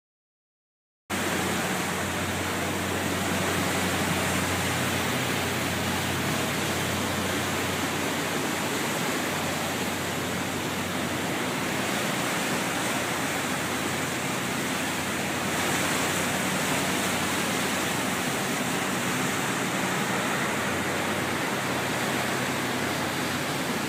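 Steady rush of water and wind from a motor yacht under way, with a low steady engine hum underneath. It cuts in suddenly about a second in after silence.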